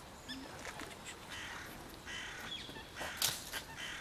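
Wild birds calling: thin, short high chirps and two harsh, rasping calls around the middle, with a sharp loud sound a little after three seconds.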